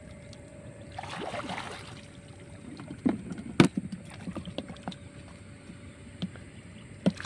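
Water sloshing and splashing with scattered knocks, as someone moves through shallow water during electrofishing. There is one sharp loud click a little past the middle.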